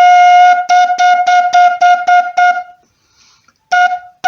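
A cane quena (tacuara cane, in F) plays one held note, then the same pitch in short tongue-struck notes about four a second: the 'golpe de lengua' tongue attack, with no finger holes covered. After a short pause, a new note starts near the end.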